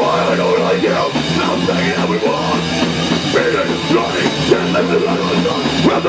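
Heavy metal band playing loud: distorted electric guitars, bass and a drum kit.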